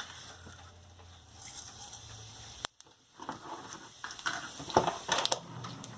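Mustard and cumin seeds crackling and popping in hot oil in a pan, the tempering stage. After a brief gap near the middle, a cluster of sharp pops comes in the second half.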